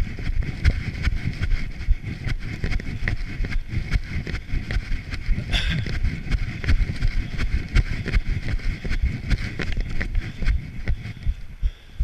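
A runner's footsteps crunching through dry fallen leaves at a running pace, about three steps a second, with heavy wind and rubbing noise on the microphone of the camera carried in hand.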